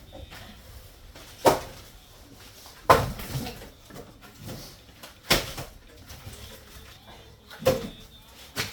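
Split firewood logs knocking as they are dropped and stacked, a sharp wooden clunk every second or two, five in all.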